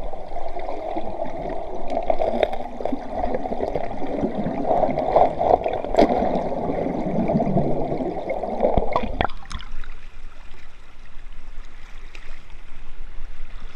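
Muffled rushing and gurgling of river current heard through a submerged action camera, with a few sharp clicks. About nine seconds in, the muffled underwater sound drops away to a thinner wash of flowing water as the camera comes up to the surface.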